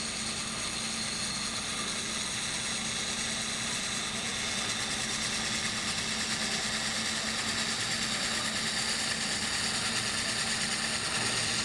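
Wood lathe running steadily while a turning tool shaves fine cuts off the end of a spinning wooden stave drum shell, a constant motor hum under an even hiss.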